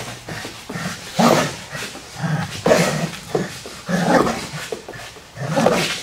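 Belgian Malinois vocalising in short bursts, roughly one a second, while tugging hard on a toy held by its trainer.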